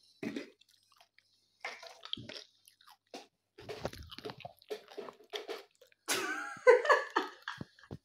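Boiled eggs knocking and clinking inside a glass jar as it is handled and its screw lid is taken off: a scatter of small knocks and rattles. A short vocal sound comes about six seconds in.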